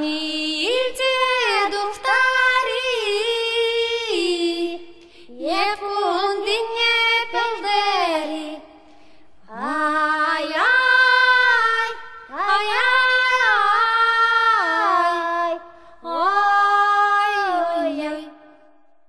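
Background music of singing: a sung melody in five short phrases separated by brief breaks, dying away near the end.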